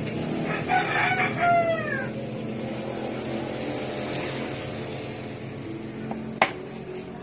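A rooster crowing once, about a second long, the call falling in pitch at its end, over a steady low hum. Near the end comes a single sharp knock.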